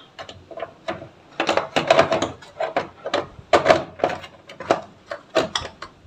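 Irregular knocks and clicks of hard plastic as the Electrolux washing machine's opened top control-panel housing is handled and shifted, a string of sharp taps that is densest through the middle.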